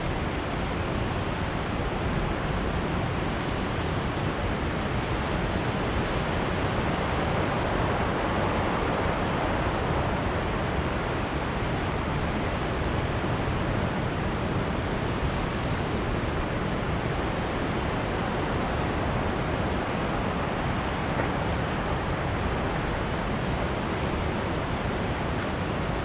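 Ocean surf breaking on rocks, heard as a steady wash of noise that swells a little about a third of the way in.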